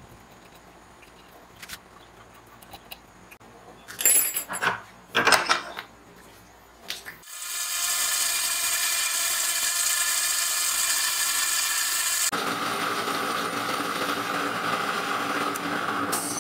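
A few sharp metallic clanks about four and five seconds in, then from about seven seconds in a metal lathe running steadily as its tool turns an aluminium pulley; the tone of the cutting changes about twelve seconds in.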